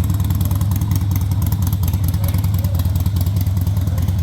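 Motorcycle engine idling steadily with an even, rapid low pulse.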